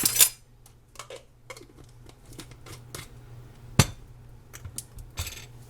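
Kitchen clatter while seasonings go into a pot: a few sharp clinks and taps of utensils and containers, the loudest about four seconds in, over a steady low hum.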